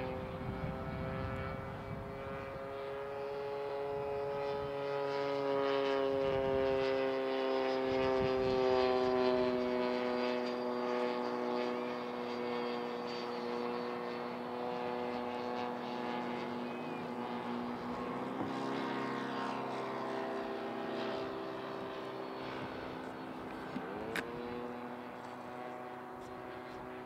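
HSD Super Viper 105 mm electric ducted fan RC jet whining in flight, a steady multi-toned whine whose pitch slides slowly lower. It grows louder a quarter of the way in, then gradually fades. A single sharp click comes near the end.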